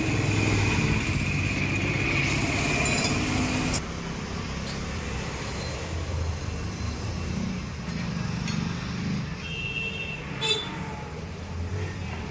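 Motorcycle engine running for the first few seconds. It stops abruptly, leaving a quieter background of vehicle noise with a single sharp metallic clink near the end.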